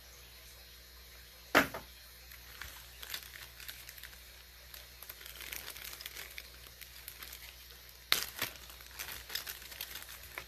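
Packaging crinkling and rustling while small parcel contents are handled, with a sharp knock about one and a half seconds in and a few more knocks about eight seconds in.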